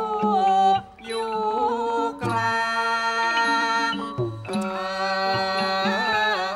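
Thai piphat ensemble music accompanying khon masked dance: a wavering, sliding melody over a steady drone, with drum strokes. It drops away briefly about a second in.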